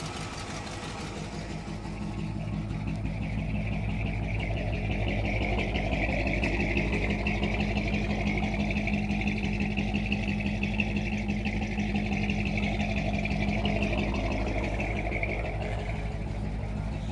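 1962 Chevrolet Impala's engine idling steadily, a low, even rhythmic pulse throughout, growing slightly louder a couple of seconds in.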